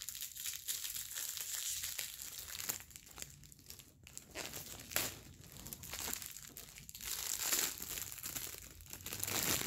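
Cellophane wrapping and tissue paper crinkling and rustling as they are handled and pulled open, an irregular run of crackles.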